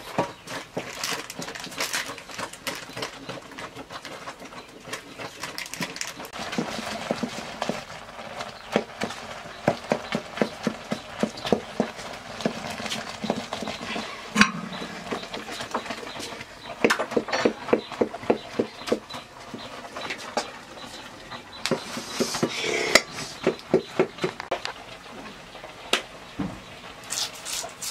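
Wooden utensils knocking and scraping in a metal wok over a wood fire: a wooden spoon stirring nettle curry, then a wooden churning stick spun between the palms to mash the nettles, making quick rattling runs of knocks.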